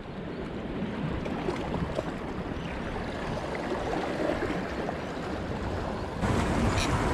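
Small sea waves washing against the rocks at the waterline: a steady rushing wash that gets louder about six seconds in.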